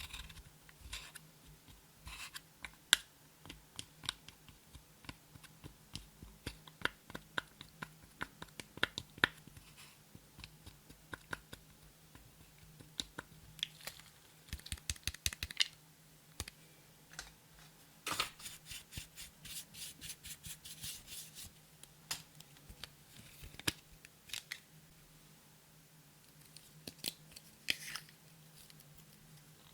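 Clear slime being squished, folded and stretched by hand, giving irregular sharp wet clicks and pops, with a quicker run of clicks a little past the middle. A faint steady low hum sits underneath.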